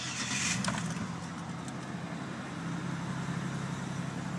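2007 Dodge Nitro SLT's V6 starting: a short crank right at the start that catches within about half a second, then a steady idle.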